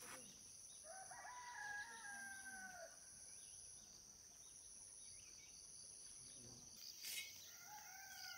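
Faint rooster crowing: one long crow of about two and a half seconds, slightly falling in pitch at the end, and a second crow starting near the end.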